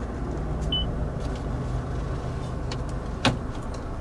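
2015 Mazda 6 idling, a steady low hum heard inside the cabin. A short electronic beep comes under a second in, and a single sharp click a little past three seconds.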